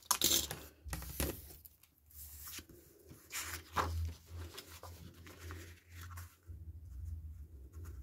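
Paper and card being handled on a cutting mat: short swishes and scrapes as a freshly trimmed card and its cut-off strips are slid out from under a clear acrylic ruler, then soft rustling as the card is picked up and turned over.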